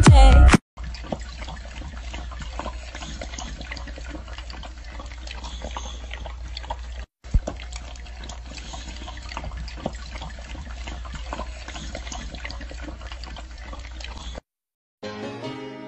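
An animal lapping and slurping liquid from a metal bowl: wet, irregular small clicks over a steady hiss and low hum, with a brief dropout about seven seconds in.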